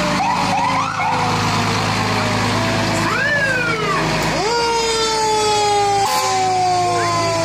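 Several fire truck sirens sound at once, each rising quickly in pitch and then slowly winding down, over the steady low drone of the trucks' engines. The mix of sirens changes abruptly about six seconds in.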